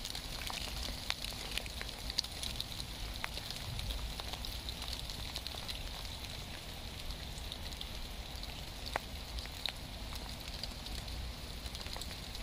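Steady rain falling on garden plants and soil: an even hiss with scattered ticks of single drops landing on leaves.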